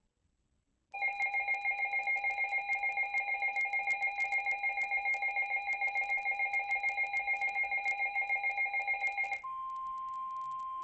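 Weather-alert alarm: a rapidly pulsing electronic beep sounds for about eight seconds, then gives way to a steady single tone, the NOAA Weather Radio 1050 Hz warning tone. Together they announce an incoming severe thunderstorm warning.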